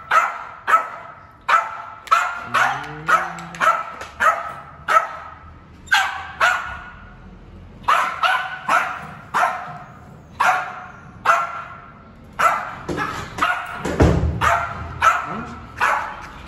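A small Yorkshire terrier barking over and over in sharp, high yaps, about two a second in quick runs with brief pauses: nervous, excited barking to be taken out for a walk.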